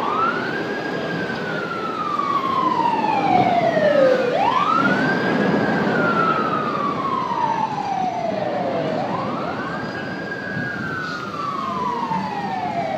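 Emergency vehicle siren on wail. Each cycle rises quickly, then falls slowly over about four seconds, three times, with traffic noise underneath.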